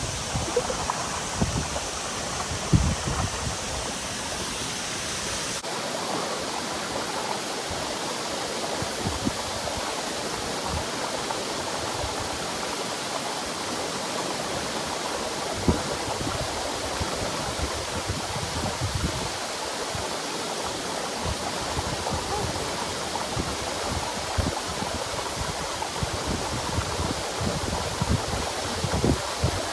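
Waterfall: a steady rush of falling water, with a few short low thumps now and then.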